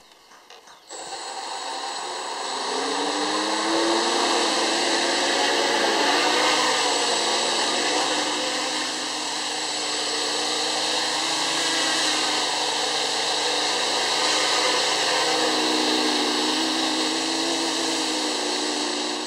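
Quadcopter's electric motors and plastic propellers, one of them a taped repair, spinning up about a second in and running through a short flight. A noisy, steady drone with a high whine over it, its lower pitch wavering as the throttle changes; the noise is normal for this quad.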